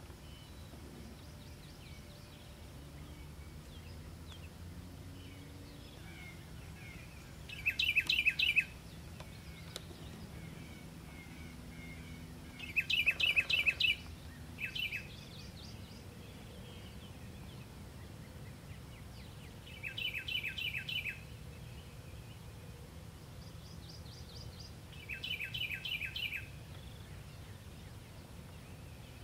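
A songbird singing short, fast runs of repeated notes, each about a second long, four times several seconds apart, with fainter, higher bird phrases between them over a low, steady background rumble.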